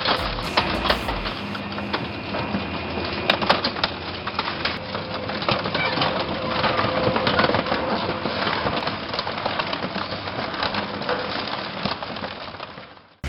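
Industrial shredder crunching and cracking through material: a steady mechanical din packed with sharp cracks and splintering crackles, fading out near the end.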